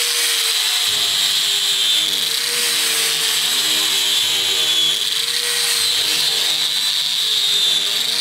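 Angle grinder with a fibre sanding disc grinding down a rubber recoil pad on a gun stock: a steady, loud grinding hiss over the motor's whine, which sags and recovers slightly in pitch as the disc is pressed into the rubber.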